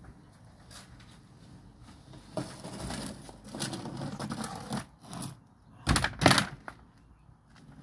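Scattered clattering and knocking, with two sharp knocks close together about six seconds in.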